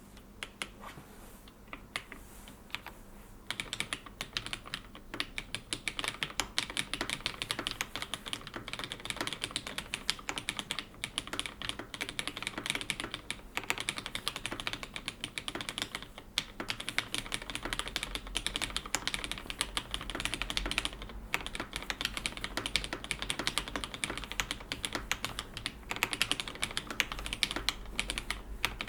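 Typing on a plateless Cherry G80-1800 keyboard fitted with retooled Cherry MX Black linear switches, lubed with Krytox 107 and filmed, under GMK keycaps. A few scattered keystrokes come first, then from about three or four seconds in, fast continuous typing.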